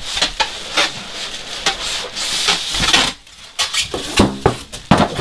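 Polystyrene packing and a cardboard box rubbing and scraping as a boxed air compressor wrapped in a plastic bag is pulled out, with several sharp knocks in the last two seconds.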